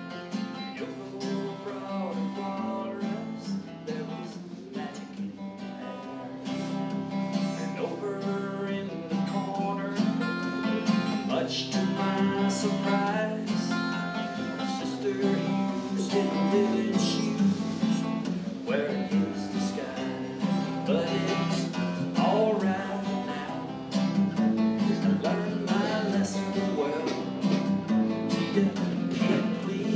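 Acoustic guitar strummed steadily in chords, with a man singing along; it gets louder about six seconds in.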